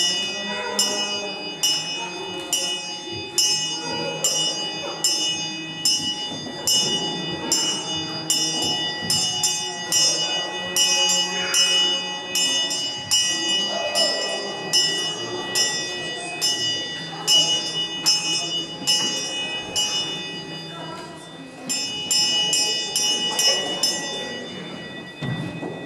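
Small brass handbells rung over and over, about two clangs a second, each leaving a high ringing tone. The ringing pauses briefly twice in the second half.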